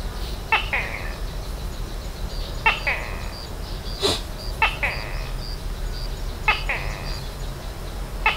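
Forest animal calls: a sharp falling two-part call repeated about every two seconds, five times, with a thinner, faster pulsing call high behind it. A single sharp click about four seconds in.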